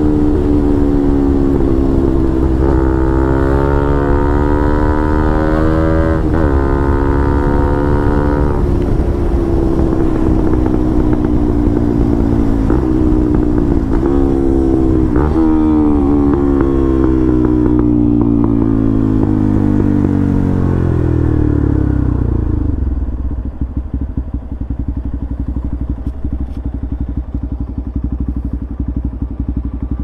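Bajaj Pulsar NS200 single-cylinder engine through an aftermarket R9 exhaust, heard from the bike. It revs up through a couple of gear changes, then holds a long falling note as the bike slows, with a few sharp pops. About three quarters of the way through it settles to a lower, quieter idle.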